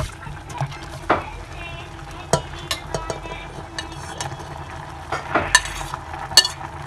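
A metal spoon stirs instant noodles in a stainless steel pot of simmering water, with a steady bubbling hiss and sharp clinks now and then as the spoon knocks the pot.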